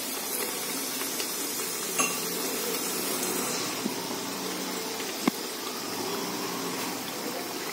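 Thick tomato-onion masala paste sizzling and bubbling in hot oil in an aluminium pot, a steady sizzle with a few short clicks about two, four and five seconds in.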